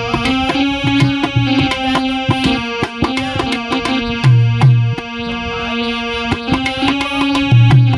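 Indian-style music: tabla drumming over held melody notes.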